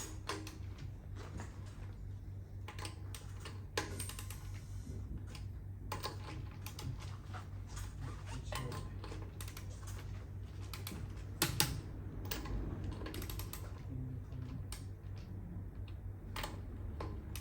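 Torque wrench clicking as the wheel lug nuts are tightened to 103 N·m: scattered sharp clicks a second or more apart, the loudest a quick pair about two-thirds of the way through, over a steady low hum.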